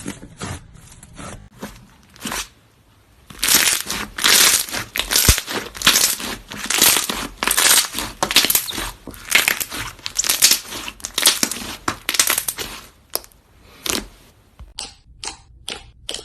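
Slime being squeezed and pressed, giving a run of sharp clicks and crackles. They are scattered at first, come thick and fast from about three seconds in until near the end, then thin out again.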